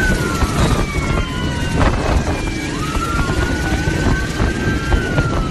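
Police car sirens wailing, several slow rising-and-falling tones overlapping, over a heavy low rush of wind buffeting the microphone on a moving motorcycle.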